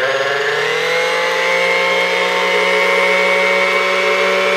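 Vintage electric stand mixer's motor running, a steady whine that rises in pitch over the first second as the motor comes up to speed, then holds.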